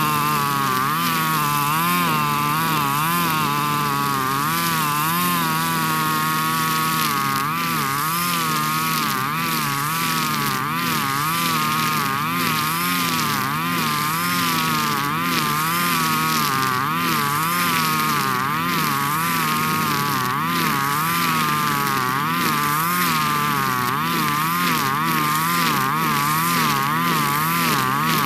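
Husqvarna 542RBS 42cc two-stroke backpack brush cutter running at high revs while cutting tall grass with square 2.4 mm trimmer line. Its engine note wavers up and down every second or so.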